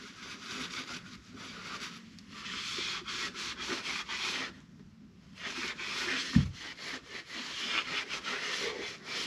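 A cloth wet with panel wipe being rubbed hard over a car's steel bodywork to clean off contaminants before rust converter goes on: runs of scratchy strokes with a short pause about halfway. A single low thump comes a little after the pause.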